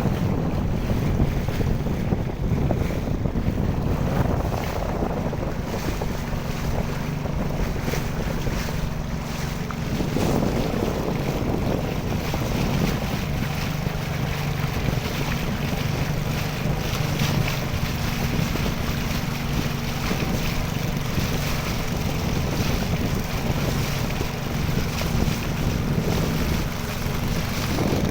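Boat engine running steadily, heard aboard with wind buffeting the microphone.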